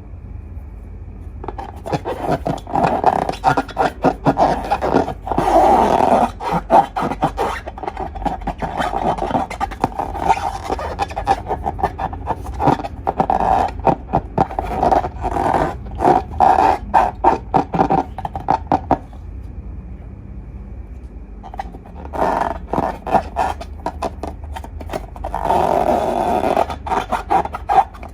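Slime being worked by hand: irregular squishing, crackling and scraping in bursts, with a short pause about two-thirds of the way through.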